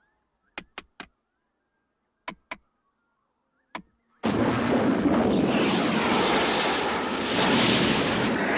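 Six sharp taps of a chisel being struck, in three groups: three, then two, then one. About four seconds in comes a sudden loud explosion that goes on without letup.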